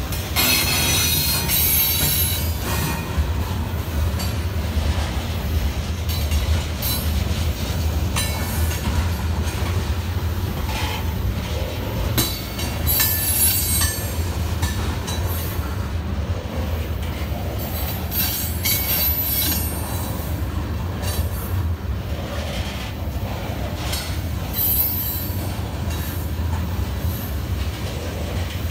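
Covered hopper cars of a CSX freight train rolling past with a steady low rumble. The wheels squeal in short high-pitched bursts four times.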